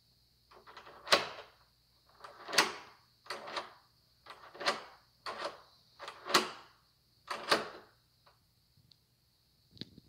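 Deadbolt being thrown and withdrawn over and over: the bolt slides out and back in the door edge about seven times, each stroke a short metal slide ending in a clack.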